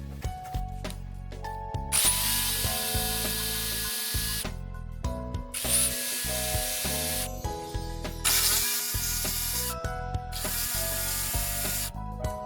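A power tool runs in four bursts of one to two and a half seconds each, over background music.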